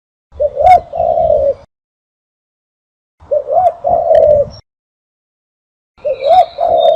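Dove cooing in three phrases about three seconds apart. Each phrase is a short rising-and-falling coo that runs into a longer held coo. It is a calling recording used to lure doves.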